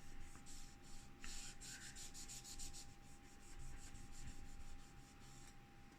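Paper soaked in isopropyl alcohol rubbed in quick, repeated strokes over a GPU heatsink's copper core, wiping off old thermal paste. The scrubbing is faint and dies away near the end.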